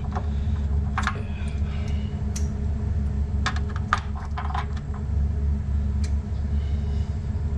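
Metal clicks and taps of a socket, extension and breaker bar being handled and taken off a water heater's anode rod hex: a few scattered clicks with a cluster around the middle, over a steady low hum.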